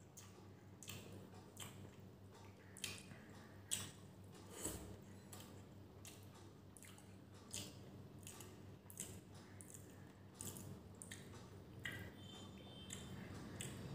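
Faint wet eating sounds: chewing and mouth clicks, with soft squelches from fingers mixing rice and beef curry. They come as irregular short ticks, one or two a second, over a steady low hum.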